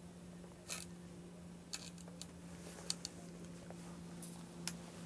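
Quiet handling sounds: a few light clicks and ticks of a spinning rod and reel being worked in the hands, over a faint steady hum.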